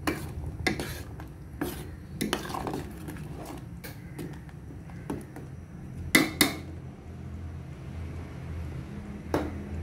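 Metal spoon stirring a pot of thick dal curry, clinking and scraping against the pot at uneven intervals, with two sharp clinks close together about six seconds in. A low steady hum runs underneath.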